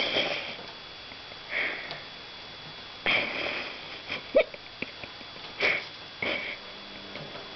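Two kittens play-fighting on a carpeted cat tree with sisal-wrapped rungs: short, scratchy scuffles of claws on sisal and carpet every second or so, with one sharper, louder sound about four and a half seconds in.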